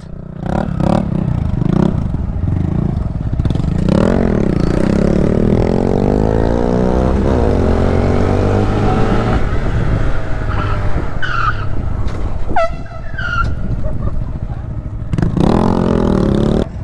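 Honda Grom's small single-cylinder four-stroke engine revving and pulling through the gears, its pitch climbing and dropping with each shift, over a steady rush of wind and road noise.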